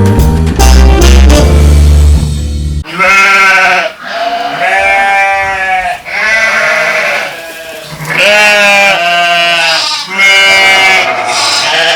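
Jazzy background music with brass and a heavy bass beat for the first few seconds. It then gives way to livestock bleating: about five long, wavering bleats, one after another.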